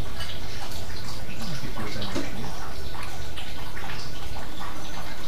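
A steady rushing noise, like running water, with a few faint clinks of a spoon and fork against a bowl of noodles.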